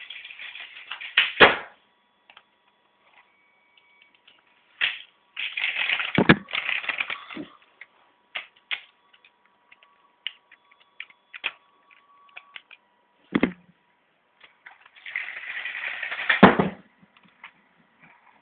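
Toy train clattering along its track and crashing into a wall with a sharp knock, three times over; there are a few lighter knocks between the runs.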